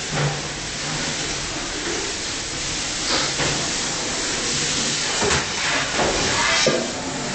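Steady, loud hiss and low hum of a commercial kitchen's dish area, machinery and running water, with a few short clatters about three, five and six and a half seconds in.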